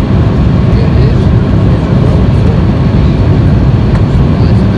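Steady cabin noise inside an Embraer ERJ-175 jetliner in flight: a loud, even, low rumble of airflow and its two turbofan engines.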